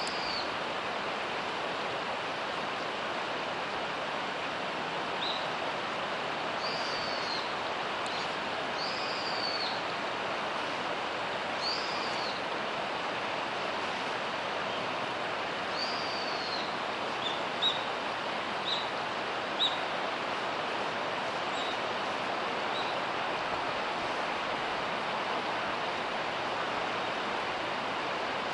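Mountain stream rushing steadily. Over it a small bird calls: about five short, high, arched notes in the first half, then several brief chirps in the middle.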